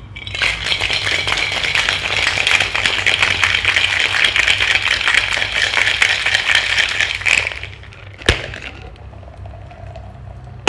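Ice cubes rattling hard inside a Boston shaker as a cocktail is shaken for about seven seconds, then stopping. A single sharp knock follows about a second later.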